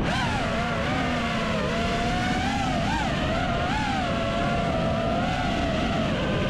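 5-inch FPV quadcopter's brushless motors and propellers whining, the pitch rising and dipping briefly with the throttle several times, over rough wind buffeting on the onboard microphone.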